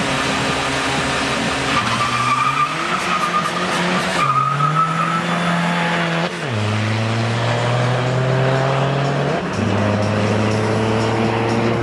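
Two drag-racing cars launching from the start line and accelerating hard down the strip, engines revving with the pitch climbing and dropping sharply at each gear change, over a loud rushing noise.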